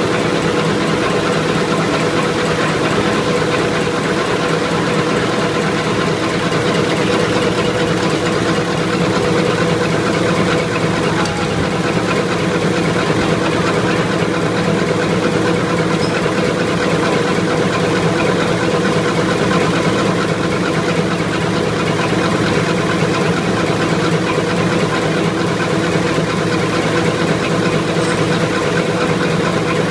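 24 cm napkin cutting and folding machine running steadily, a continuous mechanical hum with a few constant tones.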